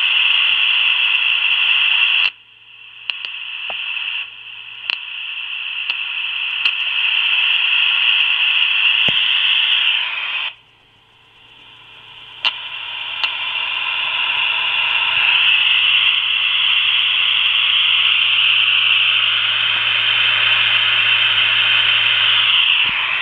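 Steady receiver hiss from the Karat-M radio's loudspeaker under a faint low hum, with a few sharp clicks. The hiss cuts out suddenly about two seconds in and again about ten seconds in, each time building back up over a few seconds.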